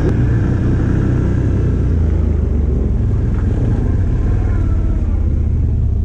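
Stels Guepard 850 quad bike's engine running steadily under way, a low rumble with road and wind noise.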